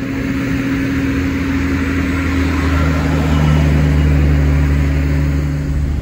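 A truck engine running steadily while driving, a low even hum with a second tone joining about three seconds in.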